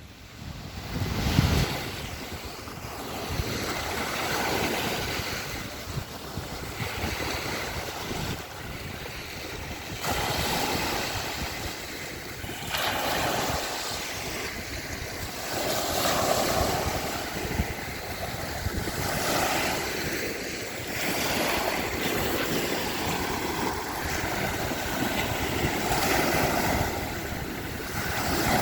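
Black Sea surf washing onto the shore, swelling and falling back every few seconds. Wind buffets the microphone, hardest about a second and a half in.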